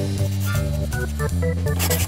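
Instrumental background music with held keyboard notes over a bass line.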